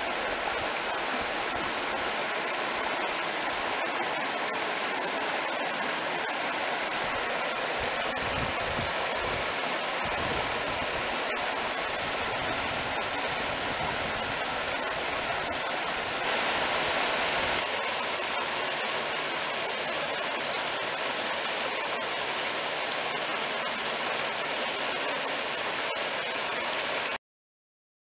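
Rocky woodland stream rushing over boulders and small cascades: a steady rush of water that swells briefly a little past halfway and cuts off suddenly near the end.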